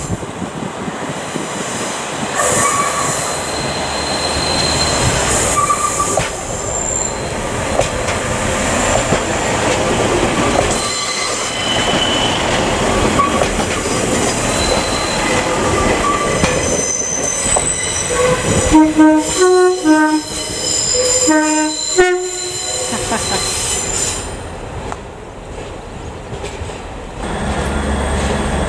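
A train running past close by, its wheels squealing on the rails, with a two-tone horn sounded in a few short notes about two-thirds of the way through.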